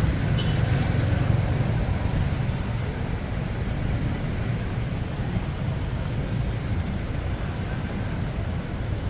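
Street traffic: a steady low rumble of passing road vehicles, a little louder in the first couple of seconds and then easing off.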